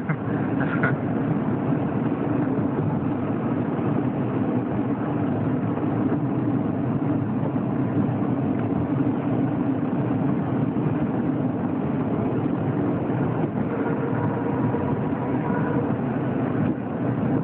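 Steady engine and road noise inside a car's cabin while it is driven.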